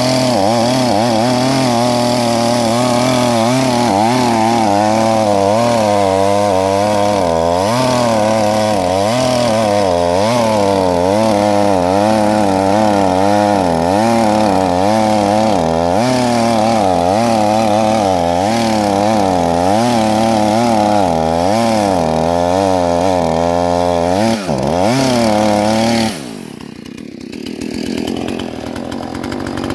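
Petrol chainsaw running at high revs through a long cut, its engine pitch wavering up and down under load. About 26 seconds in the throttle comes off: the engine note falls away sharply and the saw runs on much more quietly.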